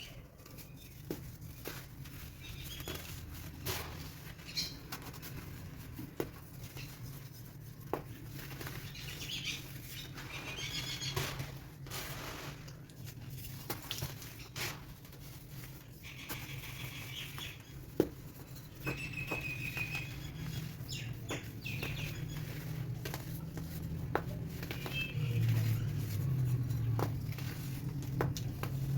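Chunks of baking soda crumbling and being crushed, an irregular run of sharp cracks and crunchy crackles over a low steady hum.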